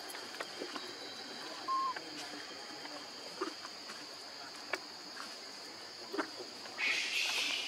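Outdoor ambience of insects: a steady high-pitched drone with scattered faint clicks, and a louder hissing buzz that sets in near the end.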